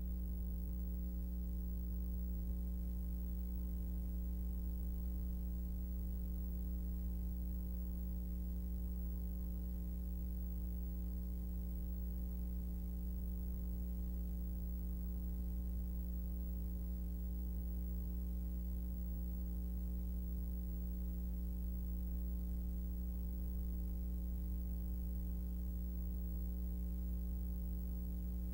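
Steady low electrical mains hum with a few fainter higher hum tones above it and faint hiss; nothing else is heard.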